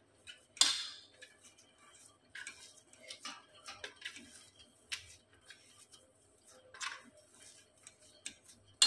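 Hand kneading crumbly bread dough in a glass bowl: scattered clicks, taps and scrapes against the bowl. The sharpest comes just after the start and another near the end.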